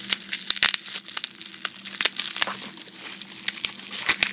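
Plastic bubble wrap crinkling as it is handled and unwrapped, in quick irregular crackles.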